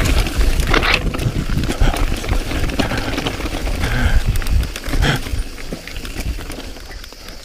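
Mountain bike descending rocky singletrack: a dense run of rattles and knocks from the bike and its tyres over stones and gravel, over a low rumble, easing off over the last couple of seconds.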